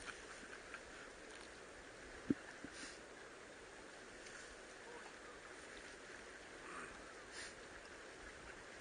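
Faint steady water and wind noise around a small wooden fishing boat, with a single sharp knock a little over two seconds in and a few faint ticks.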